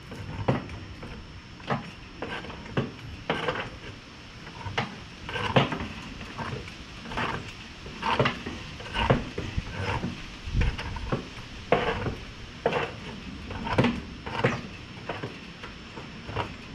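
Charcoal grill being cleaned out: irregular metal clanks, knocks and scrapes of grates and parts against the grill body, one or two a second.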